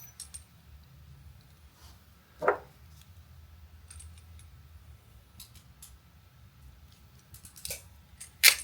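A coax connector being crimped: a hand crimping tool and small metal connector parts clicking and clinking. There is a sharp click about two and a half seconds in and a quick run of clicks near the end, the last one the loudest.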